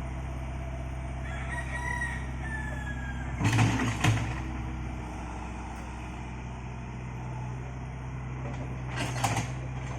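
An engine idles with a steady low hum while a rooster crows over it. Two loud, sudden noises stand out, one about three and a half seconds in and one about nine seconds in.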